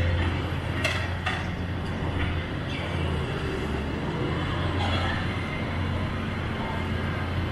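Diesel engines of a Volvo crawler excavator and a skid-steer loader running at a demolition site: a steady low drone, with a few sharp knocks or clanks, two close together about a second in.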